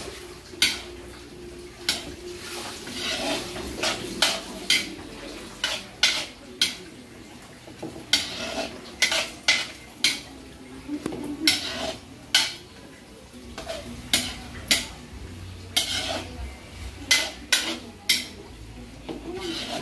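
Metal spatula scraping and clanking against a large aluminium wok as vegetables are stir-sautéed, with irregular sharp knocks every half second to a second or so. Light sizzling from the frying lies underneath.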